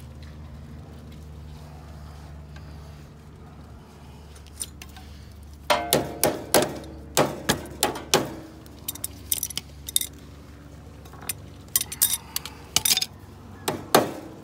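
Hammer striking the steel front steering assembly of a ride-on mower. About halfway in, a run of sharp, irregular metallic strikes begins, each with a short ring, over a low steady hum.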